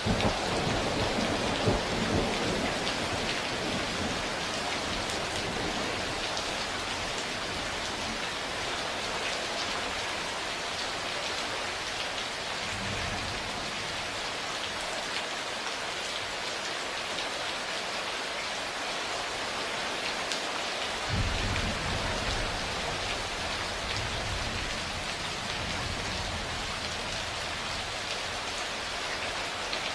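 Steady heavy rain falling, with rolls of thunder: one rumble right at the start, a faint one about halfway through, and a louder rumble about two-thirds of the way in that dies away over several seconds.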